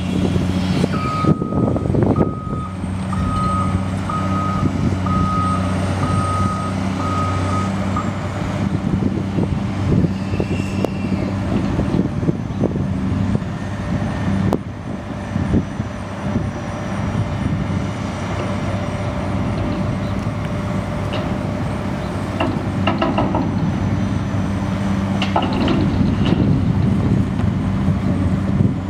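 Diesel engine of a demolition excavator working a grapple, running steadily under load. A backup alarm beeps about ten times in the first several seconds, and a few knocks come in the last third.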